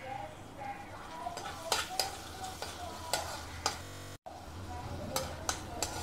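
Steel spoon stirring ginger-garlic paste into onions frying in oil in a pan: a light sizzle with scattered clinks of the spoon against the pan. The sound drops out for a moment about four seconds in.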